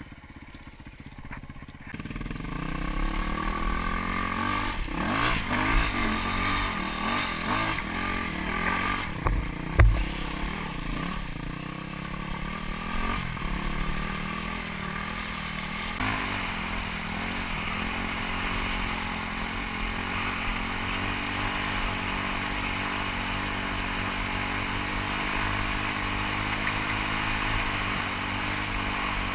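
Dirt bike engine under way: quiet for the first two seconds, then revving up and down with a sharp thump about ten seconds in, settling into a steady cruise from about sixteen seconds on.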